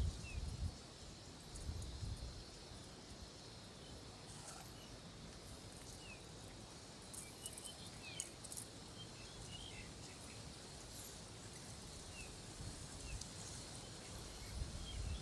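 Faint rural outdoor ambience: scattered short bird chirps over a steady background hiss, with low rumbling near the start and again near the end.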